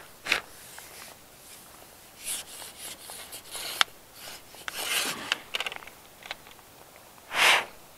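Close handling noise: jacket sleeves and hands rubbing and rustling on a fishing rod and line, with a few sharp clicks and a louder rustle near the end.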